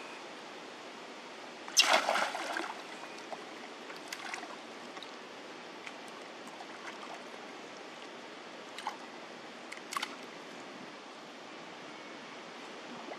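Water splashing as a baby macaque swims in a pond: one loud splash about two seconds in, then a few small splashes and drips later, over a steady background hiss.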